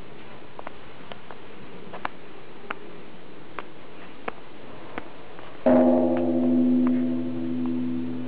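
Japanese Buddhist temple bell (bonshō) struck once, about two thirds of the way in. The sudden strike is followed by a deep, sustained ring of several steady low tones that slowly waver and fade. Before the strike there are only scattered faint clicks.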